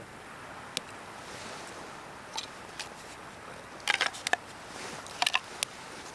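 Sharp clicks and snaps from dry pine fatwood, a few single ones and then tight clusters about four seconds in and again near the end, over a steady wash of ocean waves.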